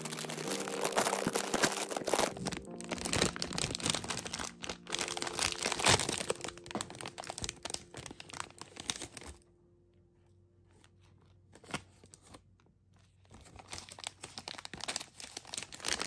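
A foil-lined plastic candy pouch of Sour Jacks sour wedges being torn open and crinkled, a dense crackle of plastic. About nine seconds in it falls nearly quiet for a few seconds, with one small click, before the bag crinkles again near the end.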